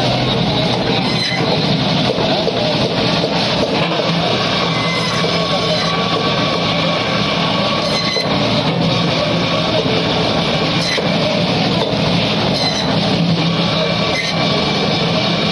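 Electric band saw running steadily with a continuous low hum while pieces of rohu fish are pushed through the blade, slicing through flesh and bone.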